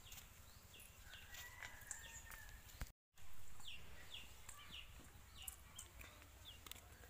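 Faint birds chirping, many short falling chirps, with a few light clicks; the sound drops out completely for a moment about three seconds in.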